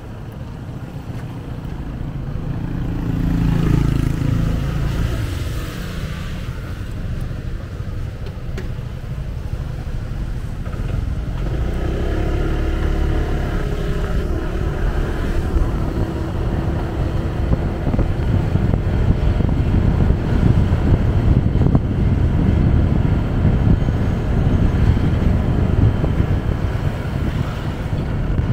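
Motorcycle running, heard from on the bike amid road traffic, getting louder as it pulls away from a stop and picks up speed, with a growing low rush of wind on the microphone.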